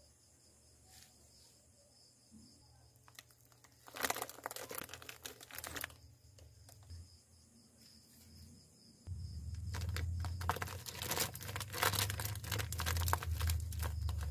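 Plastic grow bags crinkling and rustling as oyster mushroom clusters are pulled off them by hand, in a short burst about four seconds in and then almost continuously from about nine seconds, with a low hum underneath in the second half.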